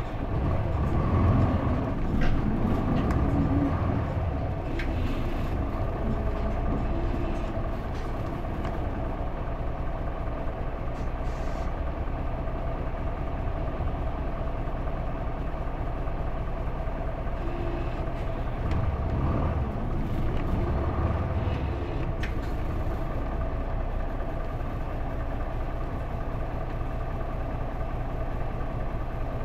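Cabin sound of a 2005 Isuzu Erga PJ-LV234L1 city bus with a manual gearbox, its diesel engine pulling away from a stop and running on steadily. The engine rumbles louder in the first few seconds and again about two-thirds of the way through.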